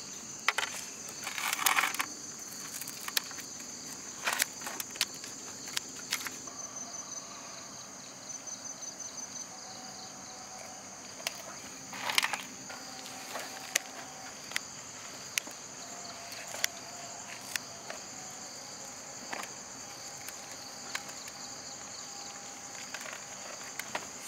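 Scissors cutting through the salt-crusted, charred skin of a whole roasted fish, then fingers peeling the crisp skin away, making scattered sharp crackles and scrapes. A steady chorus of crickets runs underneath.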